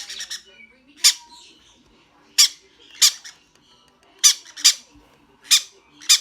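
Baby pineapple conure chicks giving loud, harsh begging squawks for food, short calls repeating roughly once or twice a second.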